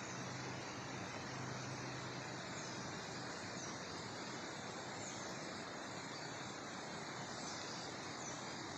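Steady outdoor rushing hiss, with a low hum that fades out about a second and a half in, and a few faint, short, high falling chirps from small birds.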